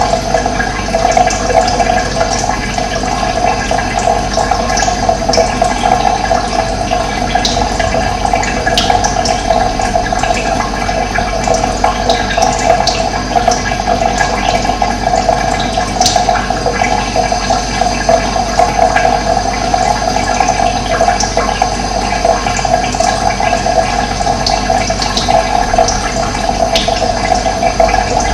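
Running water rushing steadily, with a few short high bird chirps now and then.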